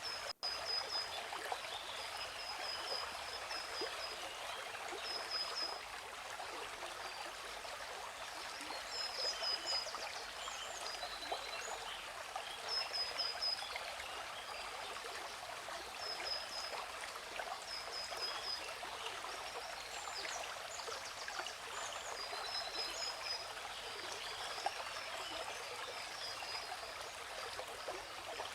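Steady rushing water of a waterfall, with birds chirping in short, high trilled phrases that repeat every second or few over it. The sound cuts out for an instant just after the start.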